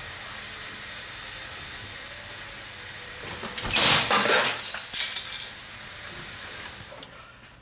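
Steady background hiss, then a burst of rustling and knocking about four seconds in and a shorter knock about a second later as the camera is grabbed and handled.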